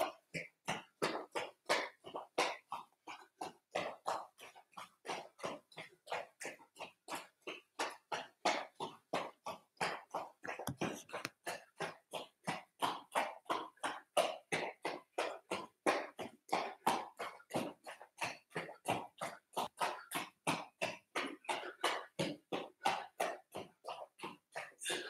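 Steady footfalls of a person jogging barefoot on the spot on foam mats, soft and even at about three steps a second.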